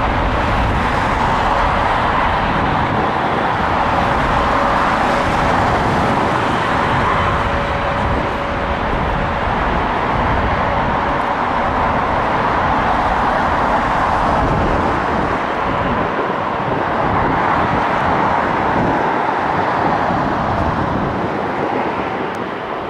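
Airliner jet engines running on the ground: a steady roar, with a faint steady whine through the first half.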